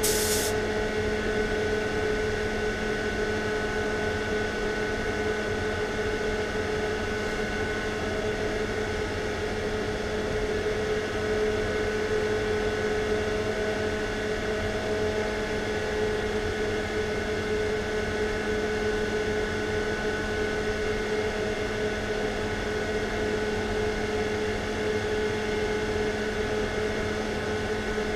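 Steady mechanical hum of running workshop machinery, holding a few constant tones. A spray gun's hiss cuts off about half a second in.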